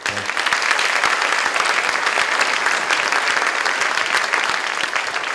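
Audience applauding: many people clapping at once, a dense steady patter of claps.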